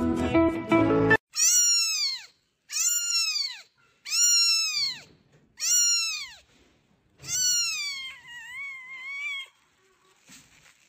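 Newborn kitten meowing, five high-pitched calls in a row, each rising and then falling in pitch, the last one drawn out with a wavering end. Background music plays briefly at the start and cuts off about a second in.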